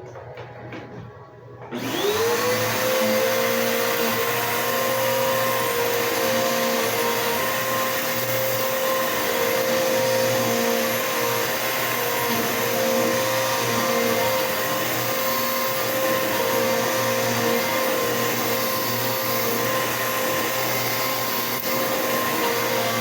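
Bissell PowerForce Bagless 6583 upright vacuum cleaner switched on about two seconds in, its motor whine rising quickly in pitch as it spins up, then running at a steady pitch.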